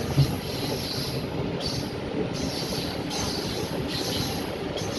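Indian Railways train running along the track: a steady rumble and hiss of wheels on rails, with a couple of short knocks right at the start.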